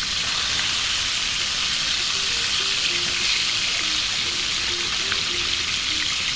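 Chicken thighs frying in olive oil and butter in a pan: a steady sizzling hiss.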